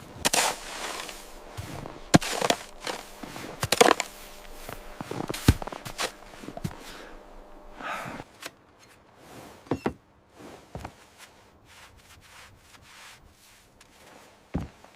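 Crunching footsteps with irregular knocks, a loud step every second or two at first, growing sparser and quieter after about ten seconds.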